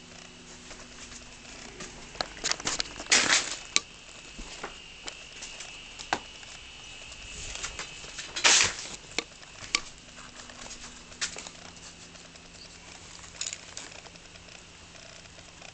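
A woman snoring, picked up on a poor phone microphone: noisy, rattling snores roughly every five seconds, the loudest about three and eight seconds in. Small clicks come in between, over a faint low hum.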